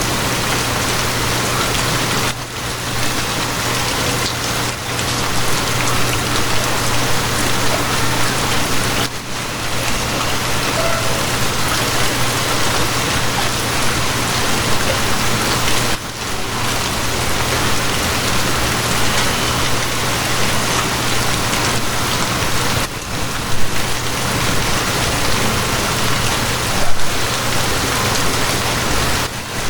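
Steady heavy rain, a dense even patter, over a constant low hum. The sound dips briefly about every seven seconds, and two sharper, louder drop hits come near the end.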